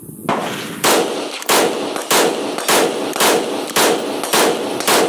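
CZ Bren 2 Ms 5.56mm rifle with a 14-inch barrel firing a steady semi-automatic string, a little under two shots a second, each report trailing off in a short echo.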